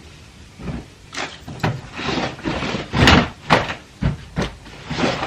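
Clothes being handled and sorted: an irregular series of fabric swishes and soft knocks, starting about a second in and loudest around the middle.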